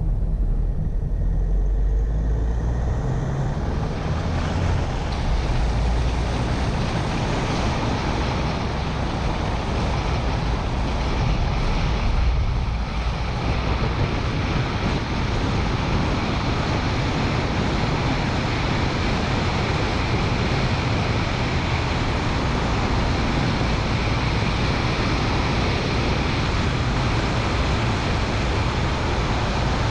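Car driving on a country road, heard from a camera on its bonnet: a steady mix of engine, tyre and wind noise. A heavy low rumble at first fills out into a broad rushing hiss after a few seconds as the car picks up speed, then holds steady.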